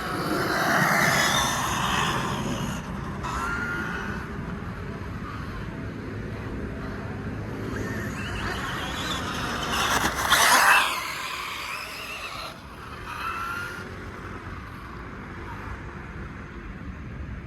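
Large-scale electric RC car on an 8S setup being driven: the motor whine rises and falls as it accelerates and slows, over tyre noise on pavement. It is loudest in a swell about a second in and a sharper one about ten seconds in.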